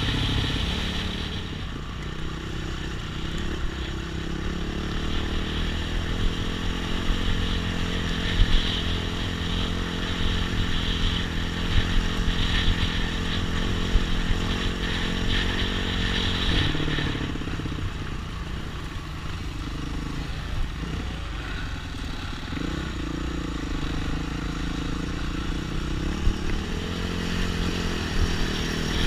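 Off-road trail motorcycle engine running under changing throttle as it rides a dirt track, its pitch rising and falling in the second half. Occasional sharp knocks and clatter come from the bike over rough ground.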